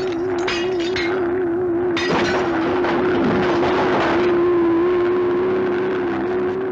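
Cartoon sound effect of a giant flying robot: a steady mechanical drone that warbles in its first few seconds. Over the first two seconds come crashes of breaking glass and debris.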